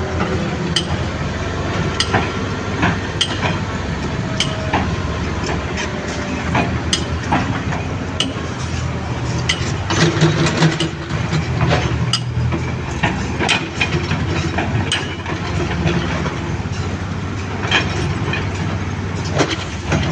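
Excavator engine running steadily under load, with frequent sharp metallic clanks and knocks from the working machine.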